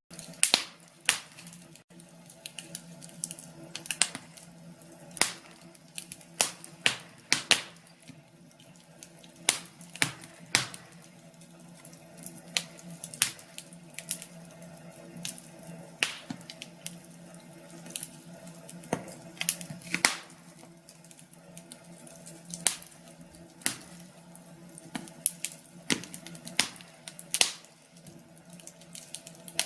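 Wood fire crackling in a fireplace: irregular sharp pops and snaps, one or two a second, over a steady low hum.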